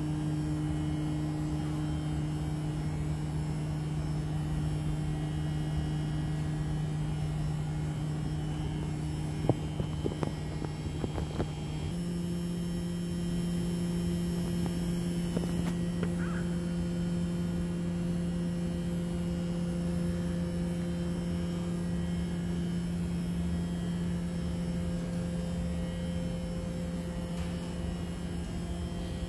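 PASCO SF-9324 mechanical wave driver, fed by a sine wave generator, humming a steady tone as it shakes a stretched string. After a few clicks about ten seconds in, the hum steps up to a slightly higher steady pitch, the generator reading 173.0 Hz.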